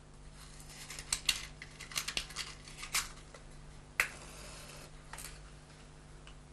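Small clicks and scratches of a matchbox and matches being handled, with a cluster of sharp strikes between one and three seconds in and the sharpest single one about four seconds in, over a steady low hum.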